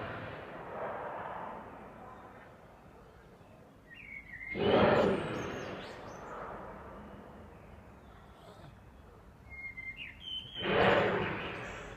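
An unidentified loud, drawn-out sound that echoes as it fades, heard twice about six seconds apart. A few short bird chirps come just before each.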